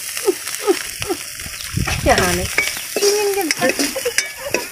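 Snails and greens sizzling in oil in a steel kadai, with a steel spoon scraping and clinking against the pan as they are stirred. Short gliding voices sound in the background, the loudest about two seconds in.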